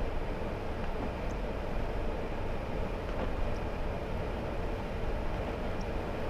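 Steady driving noise of a Hummer H3 cruising on a paved road: a constant low rumble of tyres, engine and wind.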